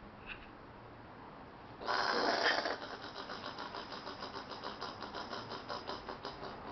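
Angry Australian possum: a loud harsh outburst about two seconds in, then a rapid rhythmic chugging growl of about five pulses a second.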